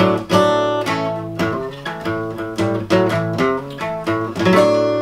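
Acoustic guitar being played: a tune of plucked notes and chords, each note struck sharply and ringing on.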